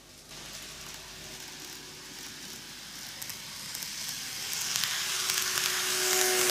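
KATO N-gauge model train (JR Shikoku N2000 series, five cars) running on canted model track. It makes a hissing rattle of wheels on the rails that grows steadily louder as the train approaches and passes close by. A whine comes in near the end, and there are a few small clicks.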